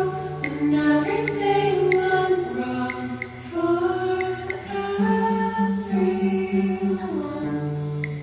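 Background music: a slow melody of held, voice-like notes with a faint regular tick.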